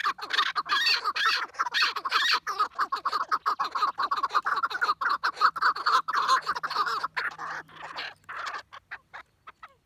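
Several caged chukar partridges calling together, a dense stream of rapid, overlapping calls that thins out and trails off over the last couple of seconds.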